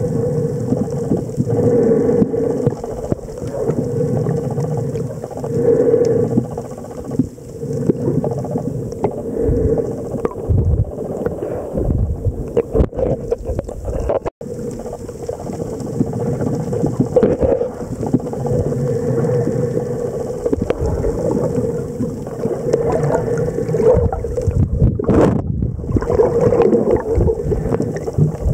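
Muffled underwater water noise picked up by a submerged camera: a low, rumbling wash that swells and ebbs every couple of seconds, with a momentary dropout about halfway through.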